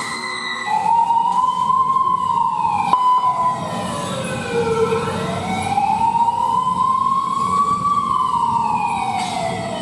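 A siren wailing, its pitch rising and falling slowly in two long sweeps, over a low rumble.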